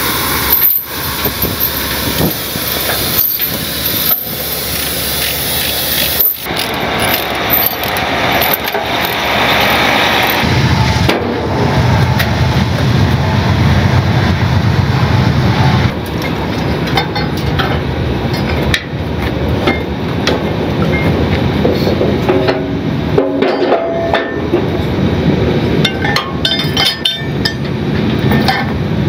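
A heavy truck's diesel engine running, with scattered metal clanks and knocks as tie-down chains are pulled off a lowboy trailer. The knocks are sharpest in the first few seconds, and a steadier low engine hum holds through the middle.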